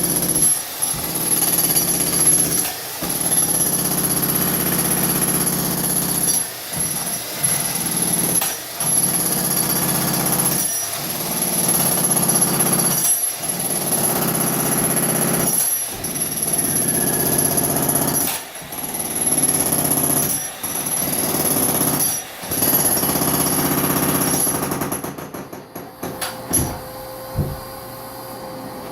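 Makita jackhammer hammering in runs of about two seconds with brief pauses between them. It stops shortly before the end, leaving a few separate knocks.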